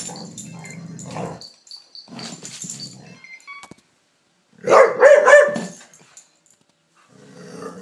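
A dog play-growling in low rumbles, breaking into a loud burst of barking about halfway through, then growling again near the end.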